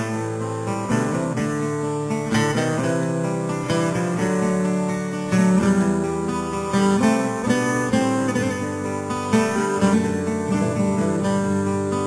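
Background music played on acoustic guitar, with strummed chords and picked notes.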